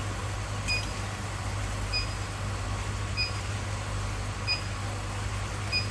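Induction melting machine running with a steady low hum while its controller gives a short, high electronic beep about every 1.3 seconds, five times.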